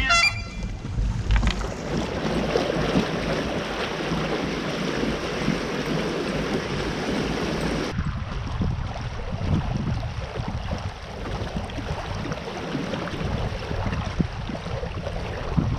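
Wind buffeting the microphone over water lapping against the hull of a fishing kayak on a lake, with low rumbling gusts; the sound changes abruptly about eight seconds in.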